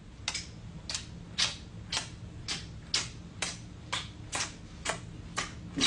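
Kisses smacking on a man's cheeks in a steady rhythm, about two a second, over a low room hum.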